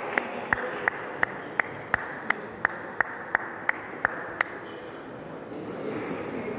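A table tennis ball bounced over and over at an even pace, about three sharp clicks a second, for roughly four seconds before it stops, with the hum of a large hall behind.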